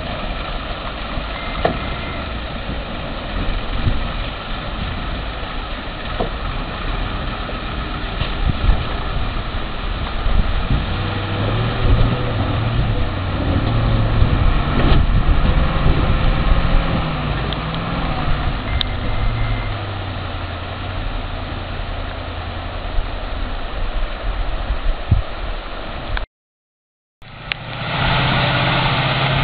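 Heavy log truck's engine labouring through a river crossing, its pitch rising and falling in the middle, over a steady noisy hiss. Near the end the sound cuts out for about a second, then another truck engine runs steadily.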